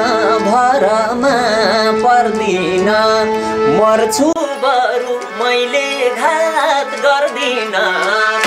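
Nepali lok dohori folk music: a harmonium's steady chords and a madal hand drum accompany a man singing.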